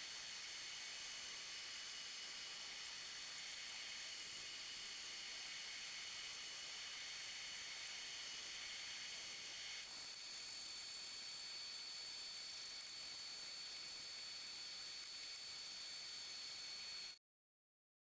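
Steady hiss with a faint high whine running through it, which cuts off abruptly to silence about a second before the end.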